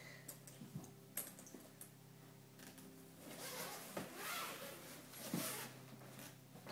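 Faint rustling and soft bumps of a child clambering over and lying across a fabric rolling suitcase on a wooden floor, a few small clicks early and a longer swishing rustle in the middle, over a steady low hum.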